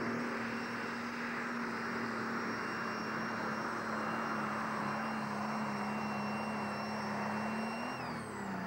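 Pulling tractor's diesel engine running flat out under load as it drags the sled, a steady drone with a high whine above it. About eight seconds in, the pitch and the whine fall away as the engine slows.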